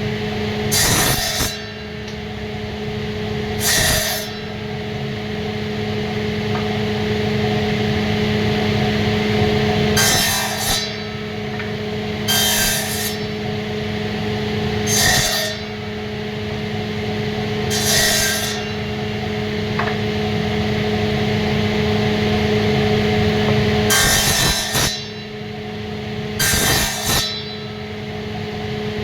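Wood being cut or shaped, with a short rasping stroke about every two to three seconds over a steady machine-like hum.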